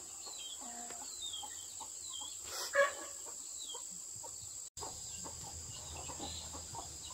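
Chickens in the yard: short, high, falling peeps about once a second, with one louder call near three seconds in.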